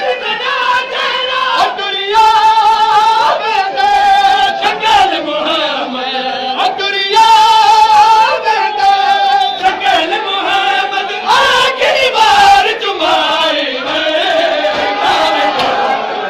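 Several men singing a noha, a Shia mourning lament, their voices rising and falling in long held lines.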